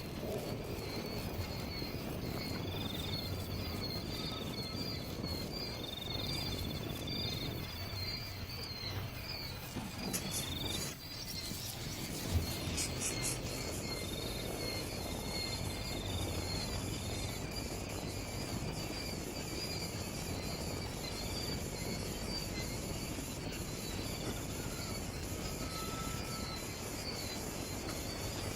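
Steady outdoor insect chorus, a continuous pulsing cricket-like trill, with a few short whistled bird notes in the first part and one sharp click about twelve seconds in.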